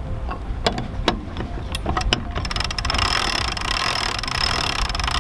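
Sailboat mast winch ratcheting as the halyard is wound in under the load of an outboard motor: scattered pawl clicks at first, then about two and a half seconds in a much faster, denser run of clicking with a hiss that stops suddenly after about three seconds.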